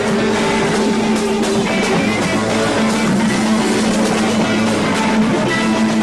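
Psychedelic rock jam: electric guitar playing long held notes over a drum kit, with the band playing at a steady loudness.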